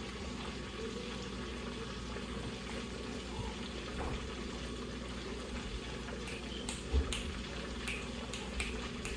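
Battered flounder deep-frying in a pot of hot grease: a steady bubbling hiss, with a few sharp crackling pops in the second half.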